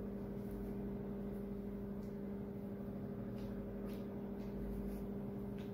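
Steady low hum in a quiet room, with a few faint ticks.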